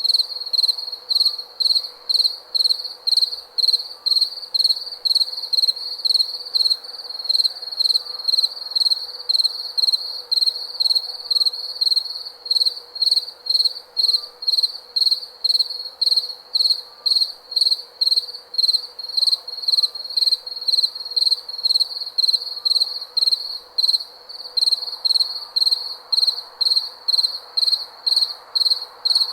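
Crickets chirping at night in a steady, even rhythm of high-pitched chirps, about two a second, over a faint steady hum.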